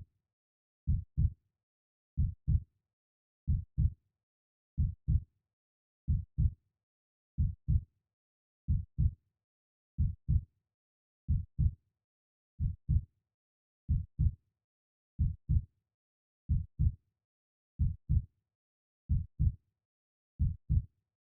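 Heartbeat: a steady run of low double thuds, lub-dub, about 45 beats a minute, with silence between the beats.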